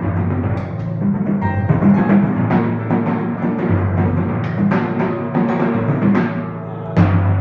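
Pedal timpani and grand piano playing a timpani concerto passage together: low drum notes shift in pitch under the piano, with sharp struck notes every half second or so and a louder stroke near the end.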